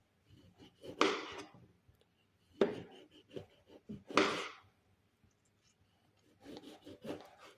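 Pieces of orange dropped into a blender jar: three separate thuds about a second and a half apart, then a quick run of smaller knocks near the end.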